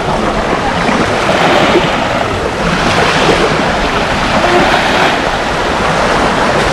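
Sea waves washing onto the beach in a steady wash of surf, with wind buffeting the microphone.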